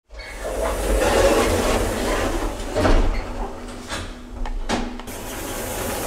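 Elevator car running: a steady low rumble with a few clicks and knocks from the machinery, and a faint steady hum through the middle of it.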